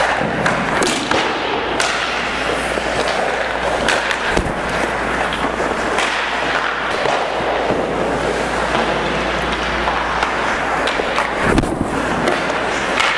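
Ice-rink practice sounds close up: hockey skate blades scraping and carving the ice in a steady hiss, broken by sharp knocks of pucks striking sticks, pads and the net.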